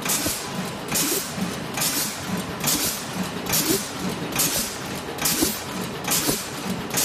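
MD-FT86 tea bag tagging machine running through its cycle, with a short hiss of air from its pneumatic cylinders about once every 0.9 s and mechanical clatter between the hisses. That is roughly 70 tagging strokes a minute.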